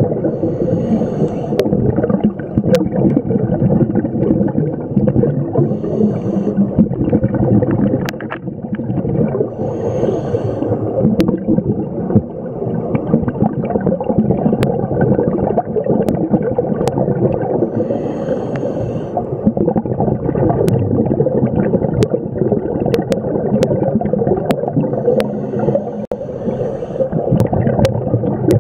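Scuba regulator breathing recorded underwater through a camera housing: a continuous bubbling rumble of exhaled air, with a brief hissing inhalation every several seconds. Sharp clicks are scattered throughout.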